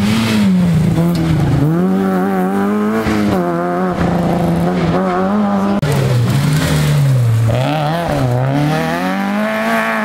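Rally car engines at high revs on a special stage, the engine note repeatedly climbing and falling through gear changes and lifts off the throttle, with a deep drop in revs about seven and a half seconds in before it climbs again.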